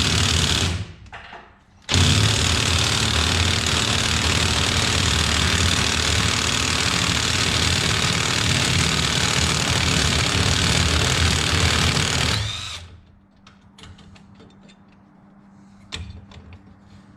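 Power drill running at speed: a short run that stops about a second in, then a steady run of about ten seconds that winds down near the end, followed by a few small clicks of handling.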